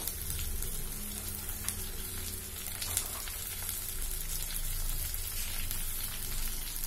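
Chopped broad beans (avarakkai) frying in oil with onions in a metal pan: a steady sizzle with a few faint clicks, over a low hum.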